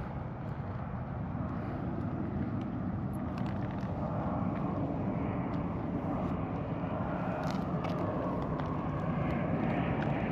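Steady low background noise that swells gradually louder, like distant engine noise, with a few faint clicks on top.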